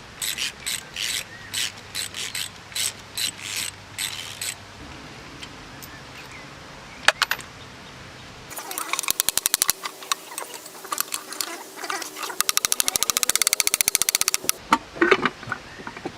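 A run of sharp metallic taps, about three a second, then fast, even ratchet clicking in two spells from a ratchet spanner working bolts on the small engine as it is taken apart.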